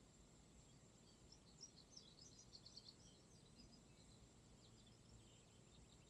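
Faint bird chirping: a quick run of short, high chirps starting about a second in and lasting a couple of seconds, then a few fainter chirps near the end. Underneath is a faint steady high tone.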